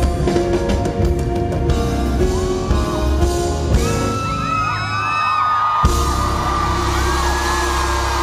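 A live band playing, with bass guitar and drums, while from about halfway through a crowd of fans screams and cheers over it in many overlapping high shrieks. A single sharp hit lands about six seconds in.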